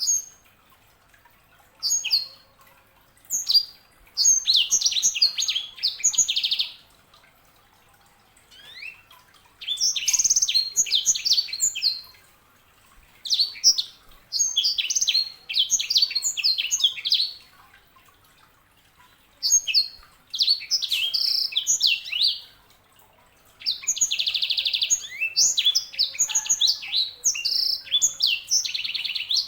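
Sanger, a canary-type finch hybrid kept as a songbird, singing in repeated phrases of rapid high chirps and trills. Each phrase lasts one to three seconds, with short pauses between them.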